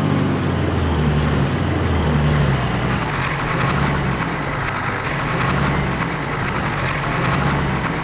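Engine of a heavy vehicle running steadily, with a low hum that wavers slightly under a broad mechanical noise.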